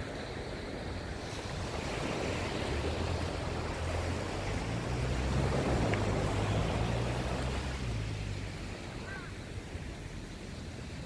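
Small surf breaking and washing up a sand beach, swelling to a peak about halfway through and then easing off, over a low wind rumble on the microphone.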